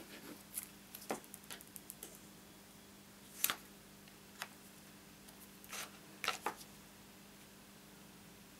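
Light paper-crafting handling sounds: scattered soft clicks, taps and rustles of cardstock and patterned paper being moved with tweezers and a liquid glue bottle. The loudest tap comes about three and a half seconds in, over a faint steady hum.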